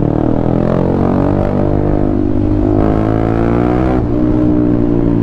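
Motorcycle engine accelerating under load, its pitch climbing for about three seconds, then dropping suddenly at an upshift and running on steadily in the next gear.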